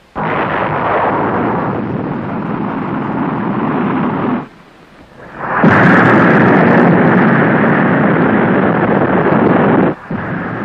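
Battle sound effects of explosions: a loud, sustained rumbling roar in two long stretches, broken by a short lull about four seconds in, with some crackle as the second stretch begins.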